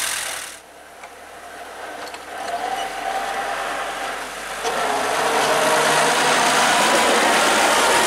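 Engine of a homemade tractor running as it pushes snow with a front blade. It is faint and distant for the first few seconds, then close and loud from about halfway in.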